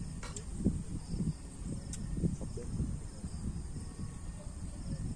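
Crickets and other night insects chirping steadily over a low, uneven rumble, with a few light clicks.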